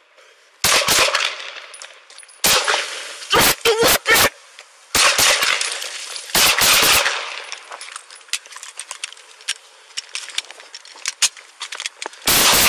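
Gunfire in an exchange between a police officer's pistol and a suspect's rifle, heard close up on a body-worn camera: shots in quick clusters over the first seven seconds or so, a stretch of fainter clicks and knocks, then another burst of shots near the end.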